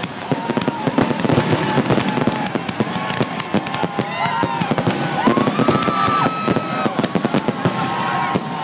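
Fireworks finale barrage: dozens of aerial shells bursting in rapid, overlapping bangs with crackling in between. Long held tones, some rising at their start, sound above the bangs.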